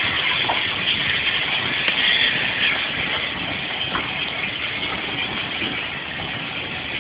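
Steam locomotive hauling a train of coaches past: a steady rush and hiss of steam with the rumble of the train on the track, easing slightly as it draws away.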